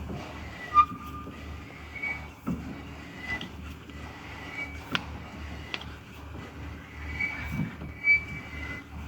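A screw clamp being tightened on a boiled, softened block of wood to bend it: a few sharp knocks and short faint squeaks, over a low pulsing hum.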